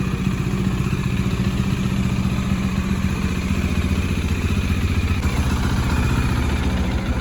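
A Bajaj Dominar's single-cylinder engine idles steadily with an even low thumping beat. The engine is warming up before a ride.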